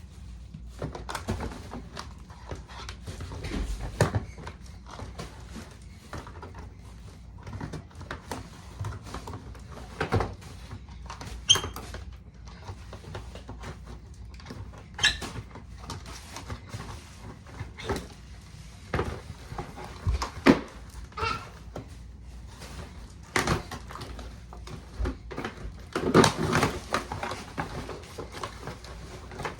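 Plastic toy parts and packaging being handled during unboxing: irregular clicks, knocks and rustles, with a few brief high squeaks and a busier stretch of handling near the end.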